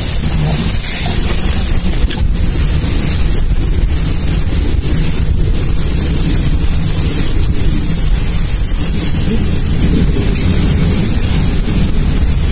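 Wind buffeting the microphone: a steady low rumbling rush. A thin, high, steady tone runs underneath and stops about ten seconds in.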